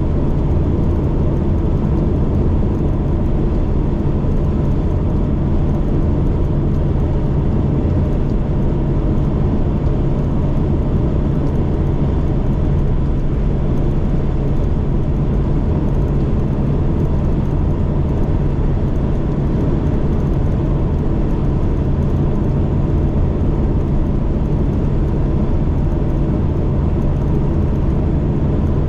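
Delivery van's engine running at a steady pace on the road, a constant low drone with no change in pitch.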